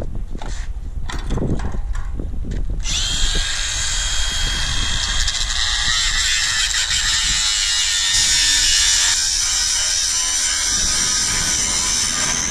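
A few knocks and clatter of steel being handled, then from about three seconds in an angle grinder runs steadily against a steel plate: a high whine under a harsh grinding hiss.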